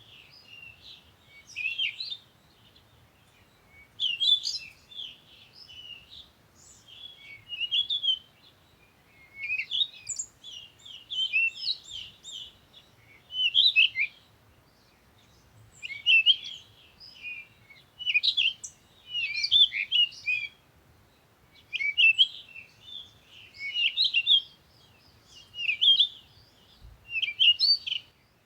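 Small songbirds chirping and twittering in short, high phrases, one coming about every two seconds.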